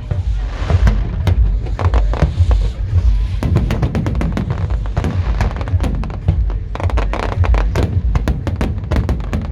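Fireworks display: a dense run of booming bursts and sharp crackles, with music playing throughout.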